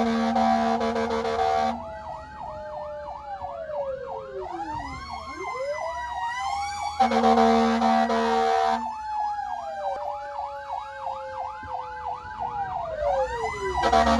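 Fire engine siren on a fast yelp, sweeping up and down about four times a second, with slower wailing glides under it. The yelp is broken by steady blasts of a horn: one ends shortly after the start, another comes about halfway through and lasts nearly two seconds, and a third starts near the end.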